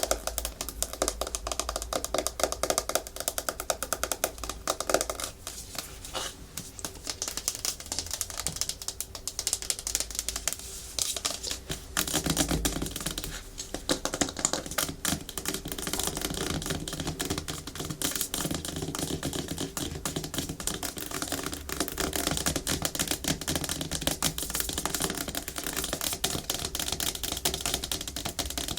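Natural fingernails tapping fast on a hard plastic surface: a dense, unbroken run of quick clicks, with scratching mixed in. The texture changes about five seconds in and again about twelve seconds in.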